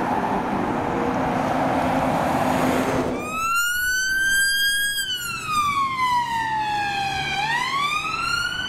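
Road noise of a vehicle passing. About three seconds in it cuts abruptly to an ambulance response car's wail siren, which rises slowly, falls over a couple of seconds, and starts rising again near the end.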